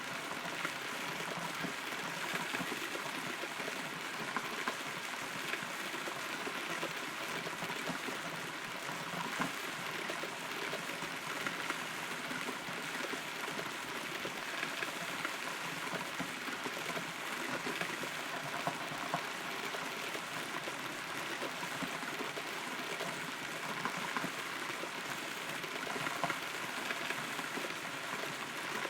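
Steady rain falling, heard from inside a hollow rotten tree, with frequent separate drops standing out from the patter.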